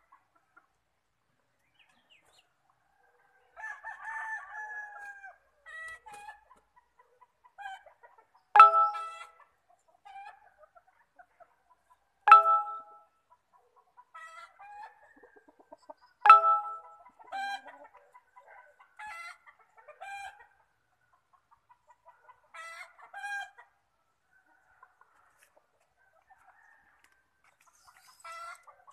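Chickens clucking and calling, with three loud calls about four seconds apart in the middle.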